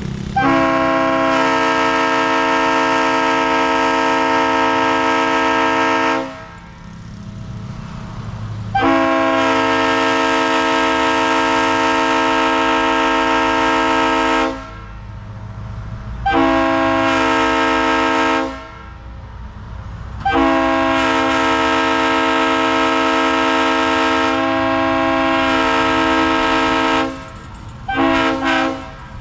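Leslie Supertyfon RS3L three-chime locomotive air horn (Tampa-built, bells 25, 31 and 44) blown on air, sounding a steady three-note chord. It gives four long blasts of roughly six, six, two and seven seconds, then two short toots near the end.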